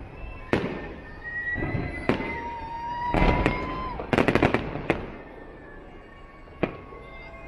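Aerial fireworks going off: separate sharp bangs, with a quick crackling run of reports a little past the middle and one last bang near the end.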